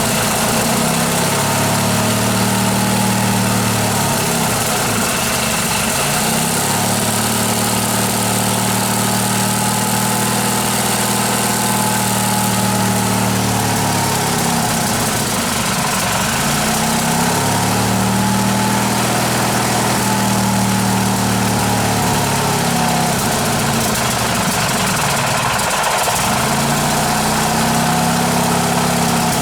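1988 Briggs & Stratton 18 hp cast-iron-bore opposed-twin engine running just after starting, its speed sagging and picking back up every ten seconds or so. Its carburettor is due for cleaning and adjustment.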